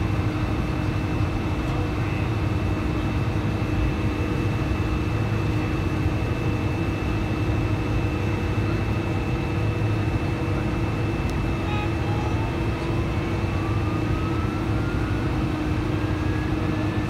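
Steady cabin drone of a Boeing 747-400's GE CF6-80C2 engines and airframe while taxiing, heard from a seat over the wing. About twelve seconds in, a thin whine starts and slowly rises in pitch.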